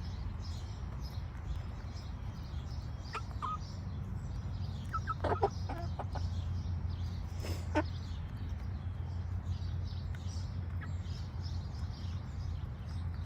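Young Buff Orpington chickens: one gives short, sharp calls in a few scattered bursts, warning another chick off its food to enforce the pecking order. A steady low hum runs underneath.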